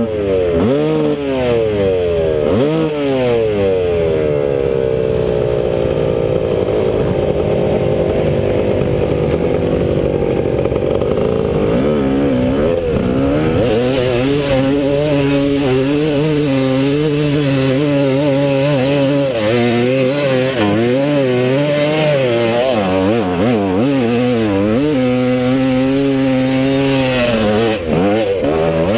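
Single-cylinder two-stroke engine of a GasGas EC 300 enduro motorcycle under way off-road, its revs rising and falling over and over with the throttle, with a long slow drop in pitch early on and steadier holds later.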